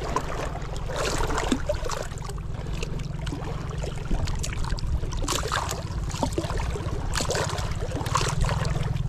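Lake water splashing and lapping against shoreline rocks around a landing net held in the water: irregular short splashes over a steady low rumble.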